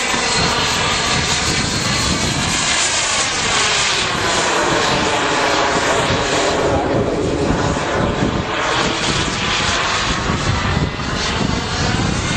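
Model jet turbine of a radio-controlled Eurofighter running continuously in flight, a loud jet rush whose tone shifts slowly as the plane manoeuvres overhead.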